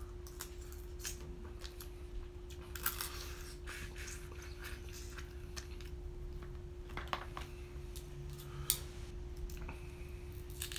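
Crab-leg shells being cracked and picked apart by hand, with scattered sharp cracks and clicks, and bouts of chewing.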